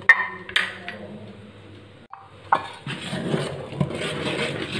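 Aluminium idli plates and pots clinking: two sharp metal knocks in the first second, then, from about halfway, a continuous scraping and rubbing of metal kitchenware as the aluminium batter bowl is handled.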